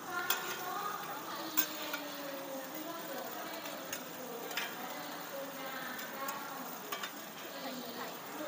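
Hoi tod, shellfish and egg omelettes, sizzling steadily as they fry on a large flat iron griddle. A few sharp taps sound over the sizzle, the clearest about one and a half and four and a half seconds in.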